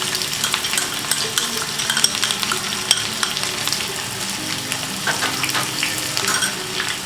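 Freshly added chopped onions sizzling in hot oil and ghee in a kadai, with many small crackles as they are stirred.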